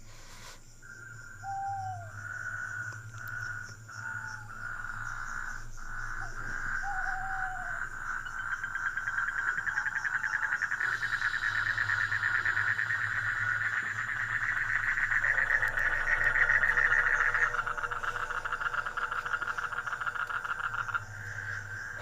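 A night chorus of frogs and insects: a steady, fast-pulsing trill that grows louder, with a few short falling calls in the first several seconds and a lower second trill joining about fifteen seconds in.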